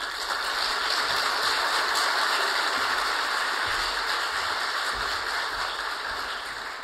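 Large audience applauding: dense, even clapping that starts suddenly and slowly dies down over the last few seconds.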